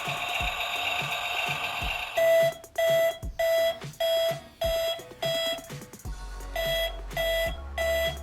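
Britains Big Farm Case IH Puma 195 toy tractor's electronic sound effects: a steady warbling engine sound, then a little over two seconds in, a reversing beeper, beeping evenly a little under twice a second.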